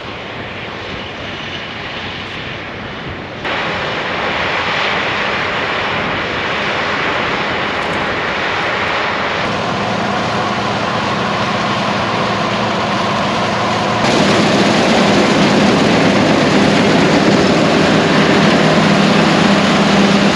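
Large diesel harvest machinery running, a steady mechanical noise that jumps louder twice at cuts, with a steady low engine hum coming in about two-thirds of the way through.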